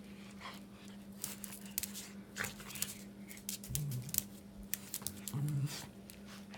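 A dog's claws click and scrape on a concrete floor as it paws and dabs at a curled-up millipede, in a string of quick, uneven taps. Two short low sounds come a little past the middle, over a steady low hum.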